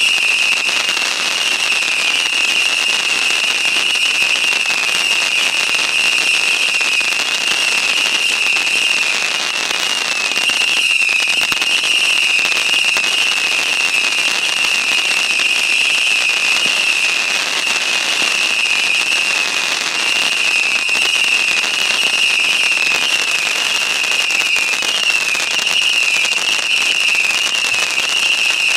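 Fireworks going off without a break: a dense crackle with a steady, wavering high whistle-like tone running through it, and no single big bangs.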